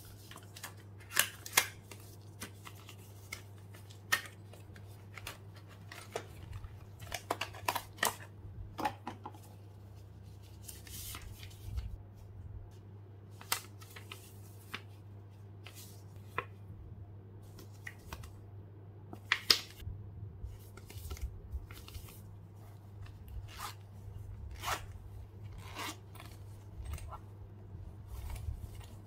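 Packaging being handled: a cardboard retail box opened, a paper manual leafed through, and small items set down on a cutting mat, heard as scattered taps, clicks and paper rustles. The sharpest clicks come about a second and a half in and again about 19 seconds in. A steady low hum runs underneath.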